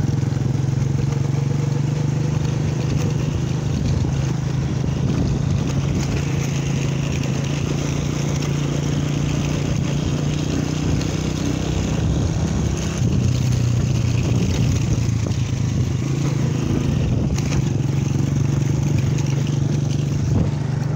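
Motorcycle engine running steadily under way, heard from the rider's own bike, with wind and road noise over it.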